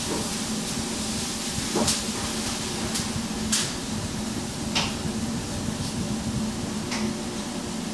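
Oven fan running with a steady hum while puff-pastry cups bake. A few brief soft hisses of the filling sizzling come through it.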